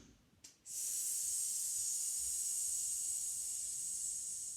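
A person making a long, steady snake-like "sss" hiss on the out-breath as a yoga breathing exercise. It starts just under a second in and tails off at the end.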